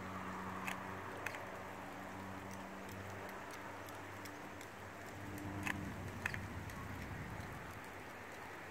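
Outdoor ambience under a storm sky: a low steady hum with a faint hiss. The hum fades out a little past halfway, and a few sharp ticks fall scattered through it.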